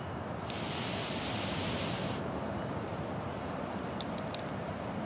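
Steady rushing of ocean surf and wind at the shoreline. A brighter hiss runs for about a second and a half shortly after the start, and a few faint clicks come about four seconds in.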